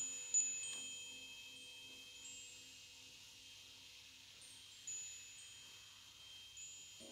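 Chimes ringing softly: two light strikes, about half a second in and again near five seconds, each leaving long high ringing tones that fade slowly, over a faint low pulsing tone.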